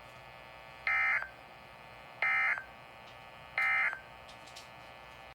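Three short identical bursts of Emergency Alert System digital data tones, each a brief warbling buzz about a third of a second long, about a second and a third apart. This is the SAME end-of-message header, which closes the warning broadcast.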